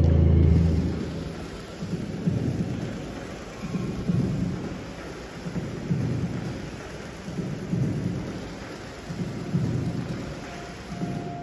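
Storm soundtrack over loudspeakers: a steady rain-like hiss with deep thunder-like rumbles swelling about every two seconds, after a loud low drone fades out in the first second.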